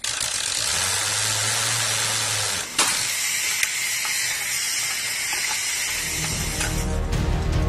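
Overhead chain hoist gear being worked on a bomb body: a steady hiss, a low hum for about two seconds, then a couple of sharp metallic clicks. Music comes in near the end.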